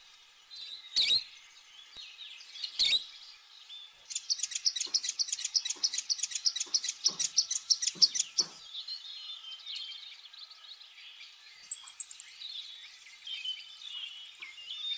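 Small birds chirping: a quick run of repeated chirps, about six a second, then a fast, very high trill near the end. A few sharp knocks in the first three seconds.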